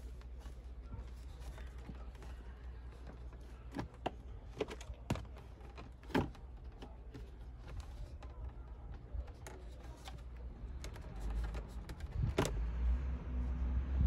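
Scattered sharp clicks and knocks of plastic interior trim being handled and pried loose under a Mercedes W210's dashboard, about half a dozen over the stretch. A low rumble builds near the end.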